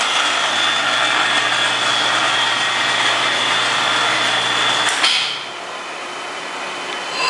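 Electric gear motor of a rotating paint turntable, chain-driven, running with a steady mechanical noise and a faint high whine. About five seconds in a click comes and the noise drops to a quieter steady hum, then a whine with several pitches rises near the end.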